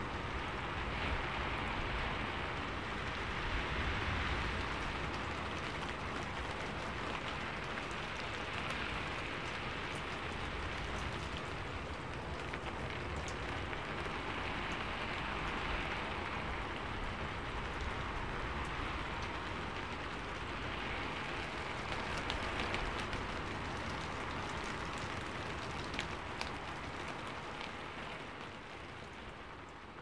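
Steady rain falling, with scattered sharp drop ticks, fading out over the last few seconds.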